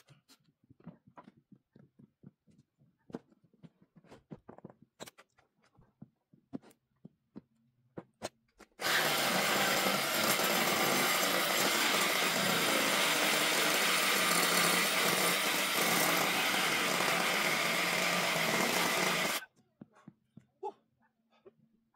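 Handheld power tool running steadily on pallet wood for about ten seconds, starting and stopping abruptly. Scattered light knocks come before and after it.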